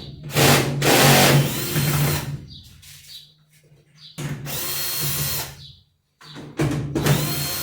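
Cordless electric screwdriver running in three separate bursts of one to two seconds each, backing out screws.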